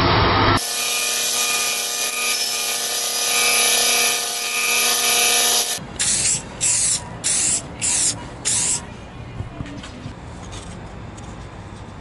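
Aerosol spray-paint can sprayed in about five short bursts, each under half a second, after a few seconds of steady hiss.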